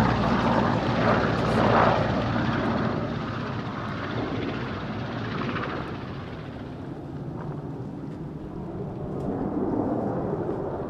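Large military helicopter flying past, its rotor and turbine noise loudest at first and fading away over several seconds. Near the end a low rumble builds again, as a distant jet approaches.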